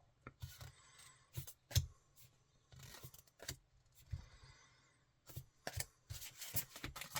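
Paper sticker packets and stickers being handled and flicked through by hand: irregular light taps, clicks and rustles, coming quicker near the end.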